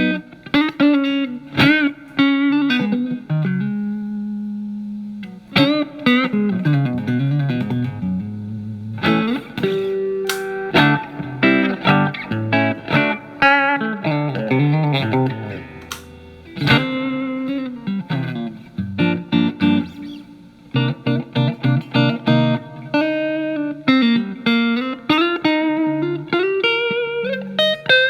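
Electric guitar, a Telecaster with single-coil alnico pickups, played through a Marshall MG15FX amp on its clean channel with reverb added. Picked single notes and chords run in phrases, with notes that glide in pitch.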